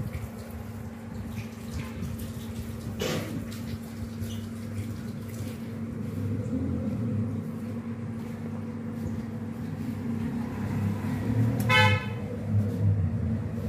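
Steady low background hum, with a short horn toot near the end.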